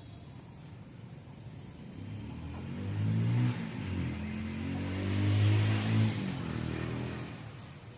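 A motor vehicle engine passing by. It grows louder from about two seconds in, its pitch shifts as it runs, it is loudest just past the middle and it fades away near the end.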